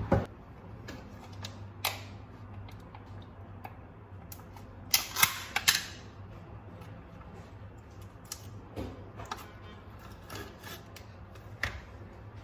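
Scattered sharp clicks and taps of small objects being handled, with a quick run of three louder clicks about five seconds in, over a faint low hum.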